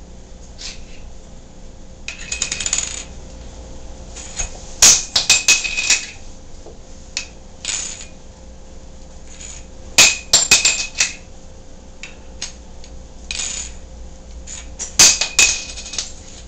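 A small metal lid clattering on a hard surface as a cat bats at it: repeated bursts of rattling clicks a few seconds apart, each with a brief metallic ring.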